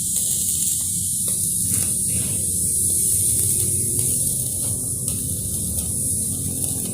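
Electric arc welding: a steady, crackling sizzle from the arc as a socket wrench is welded onto a drill bit.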